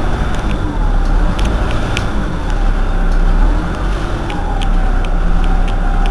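Irisbus Citelis 18 articulated city bus's engine idling with a steady low rumble. Scattered light clicks sound throughout, and a faint whining tone glides in the second half.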